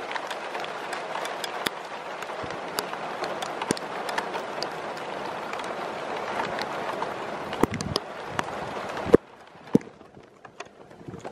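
Steady rain hiss with many drops ticking close by, cutting off suddenly with a click about nine seconds in, after which only scattered faint ticks remain.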